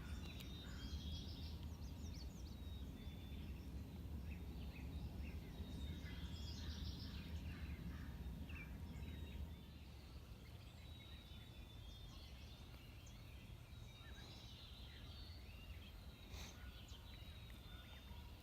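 Small birds chirping and calling in the woods over a faint low rumble; the rumble eases off about halfway through.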